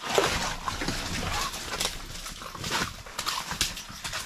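Irregular rustling and scraping with some water splashing as a just-caught fish is handled and put down the hole in the ice, loudest about the first second.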